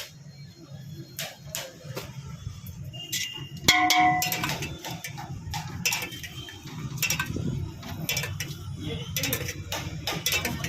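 Steel spoon clinking and tapping against a steel mixing bowl as bhel is tossed, with one loud ringing clang a little under four seconds in, over a steady low hum.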